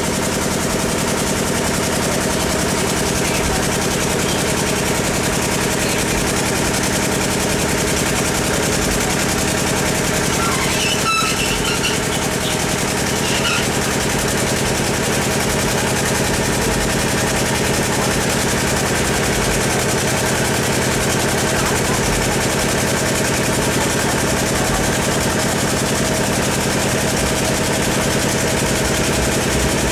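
An engine running steadily at idle, a constant drone with a fast even throb.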